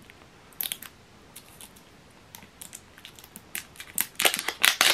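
Plastic screw cap on a drink bottle being twisted open by hand: a few faint clicks, then a quick run of louder cracking clicks near the end.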